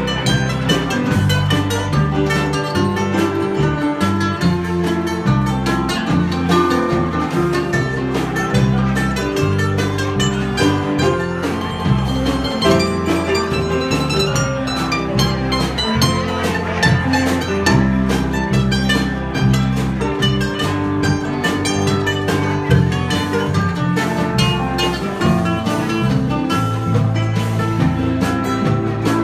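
Live band playing an instrumental stretch: an electric or acoustic lead guitar picks busy runs of quick notes over a moving bass line.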